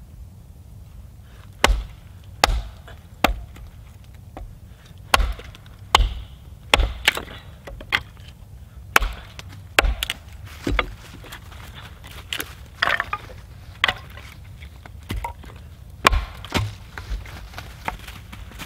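Small hatchet splitting firewood into kindling: a series of sharp, irregular chops, some loud and some light taps, with a short crackle of wood splitting apart partway through.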